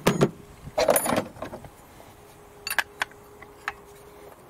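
Steel open-end wrench clinking and rattling on the metal fuel-pipe unions of a diesel engine's injectors. There are two clattering bursts in the first second and a half, then a few sharp single clicks.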